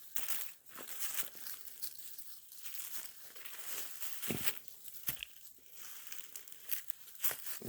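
Footsteps crunching through dry leaf litter and brush, with irregular crackling and rustling.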